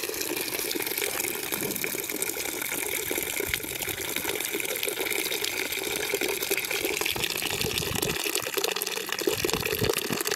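Partly boiled-down maple sap pouring in a steady stream from the evaporator pan's drain valve into a plastic five-gallon pail, splashing and frothing as it fills.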